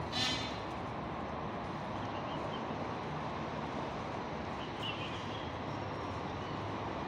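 Steady outdoor background hum of distant traffic. A short, loud, high call sounds right at the start, and two faint high chirps come later.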